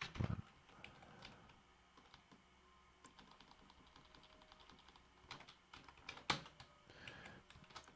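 Faint typing on a computer keyboard: scattered key clicks, a quick run of light ticks near the middle, then a few sharper key presses, the loudest about six seconds in.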